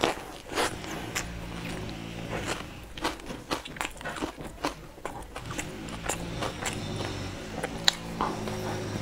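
Close-miked biting and chewing of a soft brown-bread sandwich, with irregular sharp mouth clicks and smacks; a fresh bite is taken at the start and again near the end.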